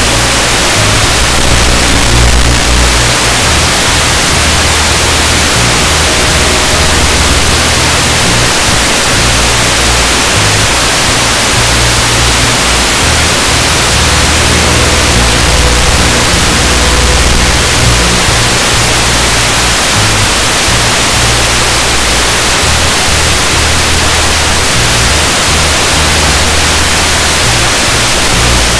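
Background music with a deep bass line that moves in held steps, under a loud, steady hiss like static.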